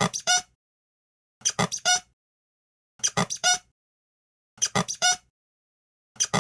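Cartoon 'embarrassed' head-scratching sound effect: a quick run of four pitched scratching strokes, the last one the loudest, repeated about every one and a half seconds.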